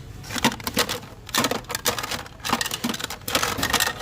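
Candy being handled, making crackling, clicking noises in four short bursts about a second apart.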